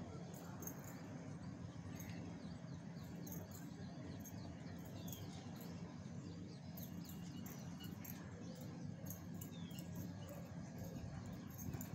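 Faint scattered high chirps of small birds over a steady low hum.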